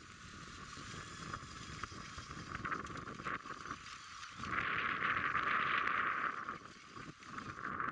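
RC rock crawler's electric motor and gearbox running as it drives, loudest for about two seconds in the middle, with scattered small clicks.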